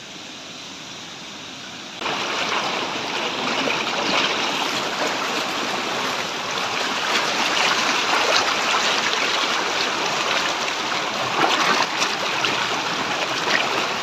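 Rushing water of a waterfall, a steady loud hiss that starts suddenly about two seconds in after a fainter hiss.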